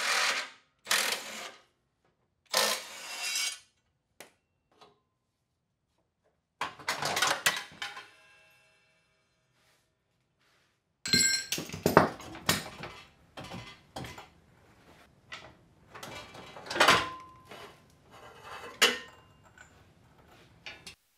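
Cordless electric ratchet running in short bursts, spinning out underbody bolts. About halfway through, metal parts clank and knock against each other, a few strikes ringing briefly.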